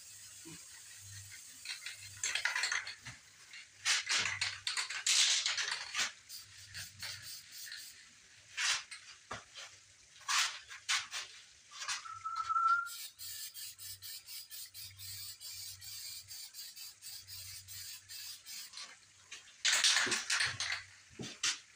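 Aerosol spray can of primer hissing in short bursts, several times, with clicks and knocks between bursts.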